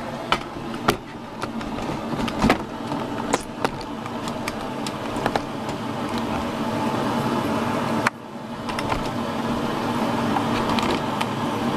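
A steady mechanical hum that slowly grows louder, with a few sharp clicks and knocks from handling things.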